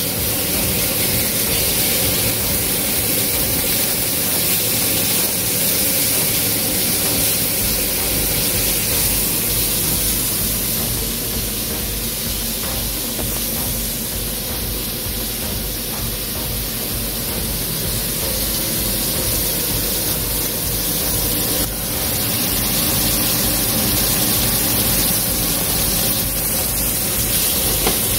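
Smash burger patties of ground beef sizzling in a hot nonstick frying pan: a steady, dense hiss.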